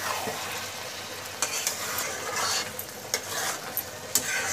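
Metal ladle stirring and scraping a thick cabbage and fish head curry in a kadai, over a steady sizzle, with several sharp clicks where the ladle knocks the pan.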